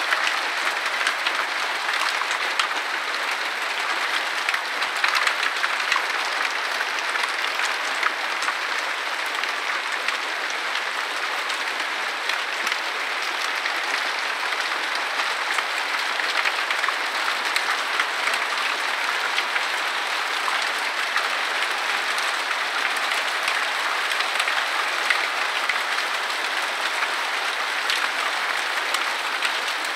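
Hail pelting a wooden deck and flowerpots: a dense, steady patter of countless small impacts.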